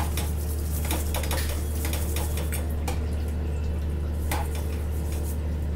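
Metal spoon scraping and clicking against a paratha and the tawa it sits on as oil is spread over the bread. There are a handful of scattered scrapes over a steady low hum.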